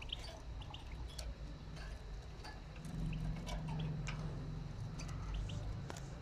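Faint, scattered light clicks and ticks around a wire birdcage, over a low steady rumble that grows louder about halfway through.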